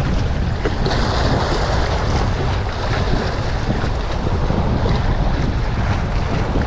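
Strong wind buffeting the microphone over choppy waves washing and splashing against concrete pipe rubble on the shore.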